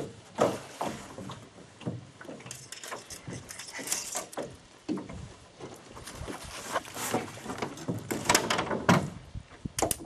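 Irregular knocks, bumps and rattles against a small metal boat's hull as a hooked bass is reeled in and landed, busiest near the end.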